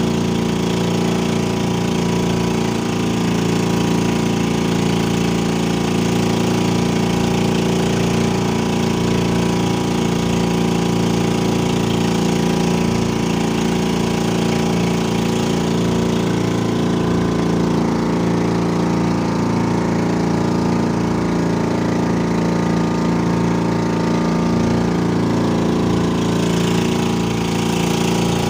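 Small fishing boat's engine running steadily at an even speed, a constant drone that does not change.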